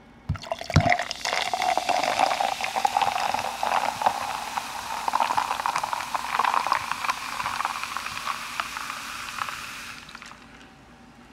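Carbonated cola poured from a plastic bottle into a glass of ice cubes, fizzing and crackling as it fills, its pitch creeping upward. A couple of light knocks come just before the pour, and the sound tails off about a second before the end.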